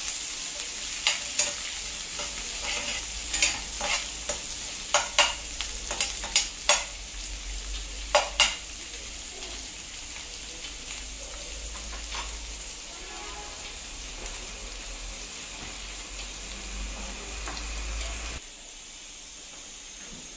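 Shallots sizzling in sesame oil in an iron kadai, with a metal spatula scraping and clinking against the pan a dozen or so times in the first eight seconds while they are stirred. After that only a steady frying sizzle, which suddenly gets quieter near the end.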